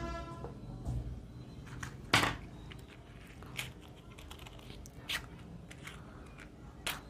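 Clicks and knocks from a candle and a matchbox being handled on a wooden tabletop. There is one sharp, loud knock about two seconds in, then a few lighter clicks spaced a second or more apart.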